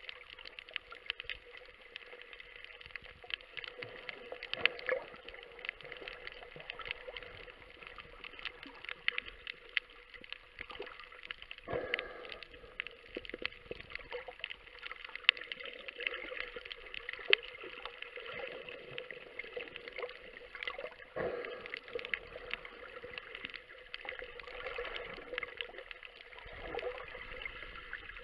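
Underwater sound: a dense, constant crackle of sharp clicks over a faint steady hum, with brief louder water rushes about 12 and 21 seconds in.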